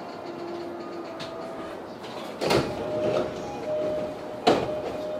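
Saikyo Line electric commuter train running on elevated track, heard from the cab: a steady running noise with faint humming tones, broken by two sharp clunks about two seconds apart, the second the louder.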